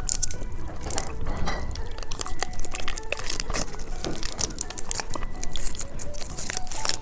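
Gummy candy sprinkled with popping candy being bitten and chewed close to the microphone: crunching with many small, sharp crackles throughout.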